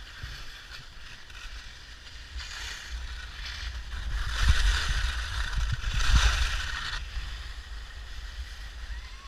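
Skis hissing and scraping over snow through a series of turns, loudest about halfway through, over a low rumble of wind on the camera microphone.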